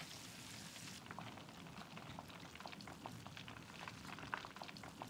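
Breaded fish fillets deep-frying in hot oil: a steady, faint crackle of many small irregular pops as the fillets are turned and lifted with tongs.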